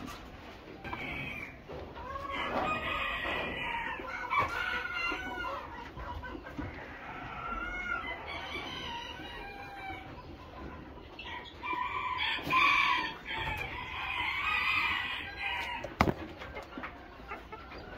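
Japanese bantam chickens calling in several bouts of crowing and clucking, with a sharp click near the end.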